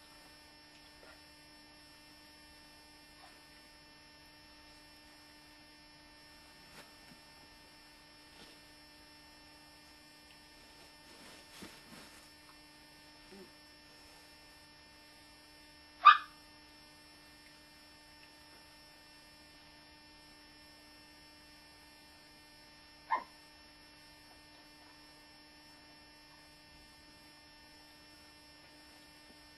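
A steady electrical hum, broken by two short, high yips from a dog: a loud one just past the middle and a fainter one about seven seconds later.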